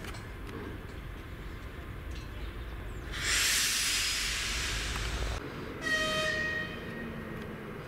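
Diesel locomotive rumbling at idle, with a loud burst of compressed air hissing for about two seconds, typical of air brake hoses being parted as the TEP70 uncouples. A train horn sounds for about a second and a half near the end.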